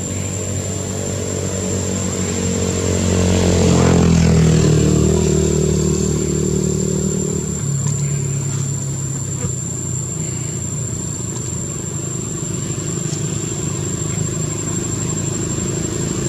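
A motor vehicle's engine running and passing, growing loudest about four seconds in, then falling in pitch as it moves away.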